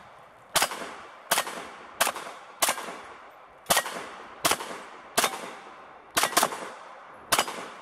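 Walther PPQ M2 9mm pistol firing ten shots at a steady, unhurried pace, roughly one every three-quarters of a second, each shot a sharp crack with a short echoing tail; two shots come close together about six seconds in.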